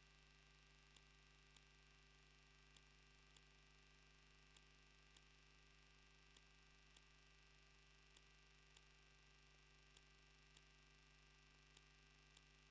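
Near silence: a faint steady electrical hum and a high whine, with faint regular ticks, from the wildlife camera's faulty audio feed.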